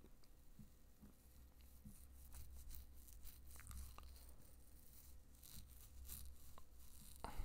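Near silence: a low steady room hum with faint scattered clicks and soft rustling, and a short louder sound near the end.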